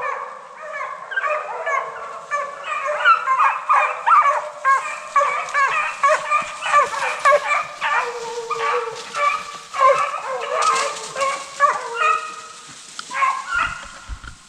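A pack of hunting hounds baying in full cry on a running chase, many voices overlapping continuously.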